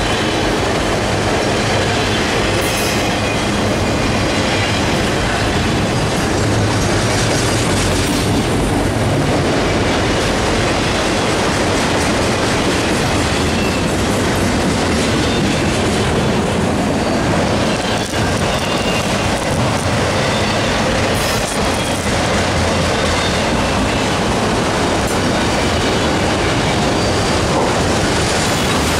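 Freight train of autorack cars rolling past close by: a steady, loud rumble and clatter of steel wheels on the rails.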